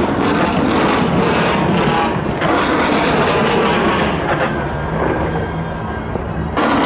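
Fireworks in a dense, continuous barrage: many shells and fountains going off at once, a steady rumble under constant crackling. It eases a little about five seconds in, then surges back suddenly near the end.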